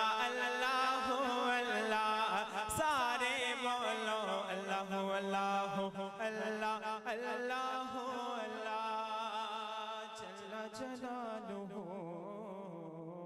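Male voice chanting a naat in long, wavering held notes over a steady low drone, with no clear words, growing quieter in the last few seconds.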